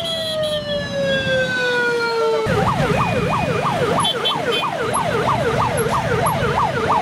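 Emergency vehicle siren. A long wail falls slowly in pitch, then about two and a half seconds in it switches abruptly to a fast yelp, rising and falling about twice a second. Under it runs the rumble of motorcycle traffic and a crowd.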